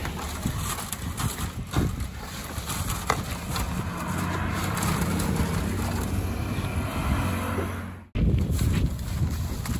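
An engine runs steadily, heard under wet concrete being tipped from a plastic pan into a steel ring mould, with a few short knocks and scrapes. The sound cuts out for an instant about eight seconds in, then returns rougher.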